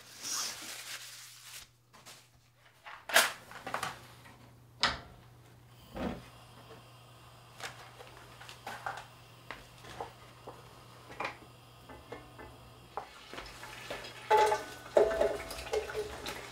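Kitchen clatter: scattered separate knocks and clinks of pots, pans and utensils being handled, with a cluster of louder clanks near the end.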